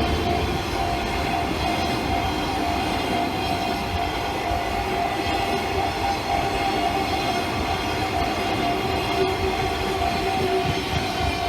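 A train passing through a railway level crossing: a steady rumble of wheels on rail. Over it run steady ringing tones from the crossing's warning bell.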